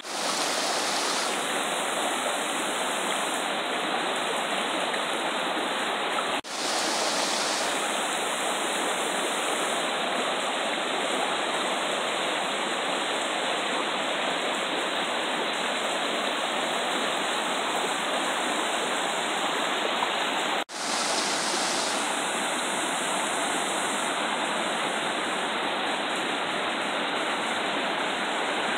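Shallow rocky river running over boulders and small cascades: a steady rush of water, cut off for an instant twice.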